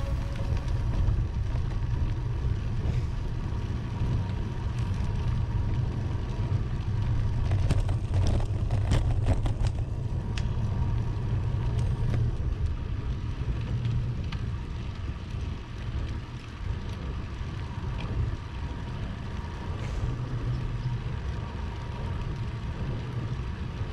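Steady low rumble of wind and road noise from a camera riding on a moving bicycle, with a few faint clicks about eight to ten seconds in.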